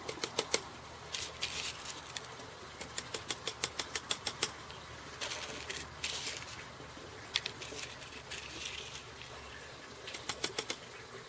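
Small homemade TLUD gasifier stove packed with chopped kindling being tapped and jostled to settle the wood tightly: runs of quick light knocks and rattles, about five a second in the longest run, with the rustle of gloved hands between.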